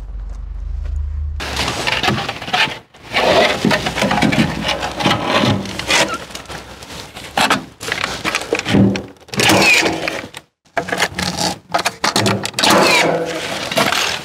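Hands-on work on timber stair formwork: a run of knocks, scrapes and cracks of wood, broken by several abrupt cuts to silence.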